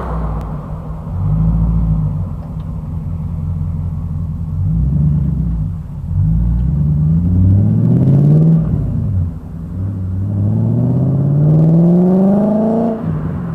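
BMW E30 with a swapped-in M60B40 4.0-litre V8 and a custom stainless dual exhaust (X-pipe, Powersprint mufflers), heard from behind as it pulls away. A low rumble first, then the engine note rises through one gear, dips at a shift, and rises again in a second pull near the end.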